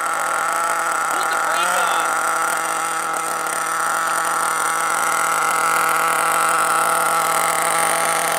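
Small combustion engine of a large-scale radio-controlled buggy idling steadily at a high, even pitch.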